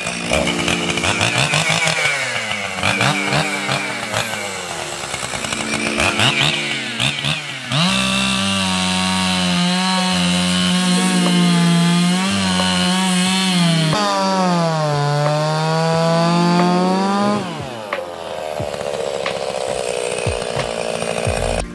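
Gas chainsaw cutting through fallen trees. After uneven running in the first seconds, it is held at full throttle from about eight seconds in. Its pitch sags as the chain bites into the wood around the middle, then rises again, and it drops back to a lower, quieter running for the last few seconds.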